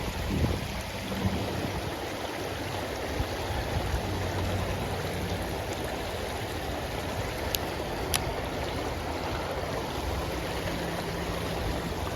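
River water flowing over rocks, a steady rushing. Two brief clicks sound past the middle.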